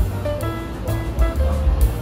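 Background music with drums and bass keeping a steady beat under melodic notes.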